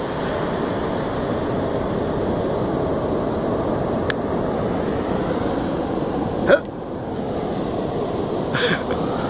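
Ocean surf washing up a sandy beach: a steady rush of waves and foamy backwash over wet sand. A brief short sound cuts in about six and a half seconds in, and another near the end.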